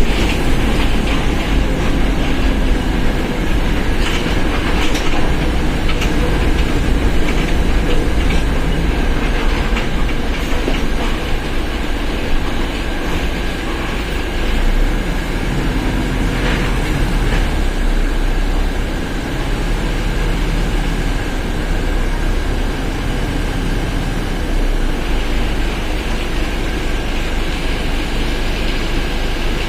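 Mercedes-Benz OF1721 bus running: steady low engine and drivetrain rumble with a thin, steady high whine from the differential, and scattered knocks and rattles.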